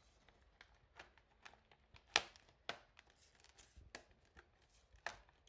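Plastic case clips of a Samsung Chromebook clicking as the case halves are pressed and snapped back together: a scattering of short clicks, the sharpest about two seconds in.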